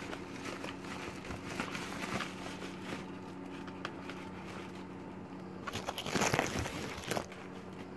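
Monitor packaging and stand parts being handled: scattered light rustles, scrapes and knocks, louder for about a second just past the middle, over a faint steady hum.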